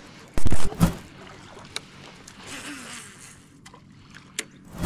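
Handling noise aboard a fishing kayak: two loud, short bumps just under a second in, then a softer rustle a couple of seconds later.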